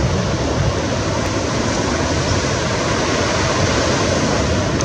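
Ocean surf washing on the beach as a steady, even rush.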